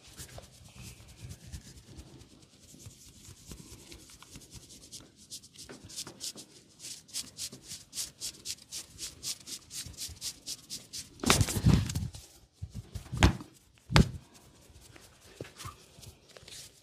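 Hands rubbing and stroking bare skin in a massage, in even strokes at about four a second, with a few loud thumps near the end.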